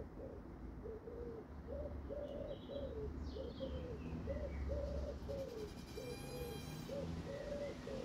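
A pigeon cooing over and over, a steady run of soft low coos about two a second. Small birds chirp faintly now and then, and there is a brief buzzing sound about six seconds in.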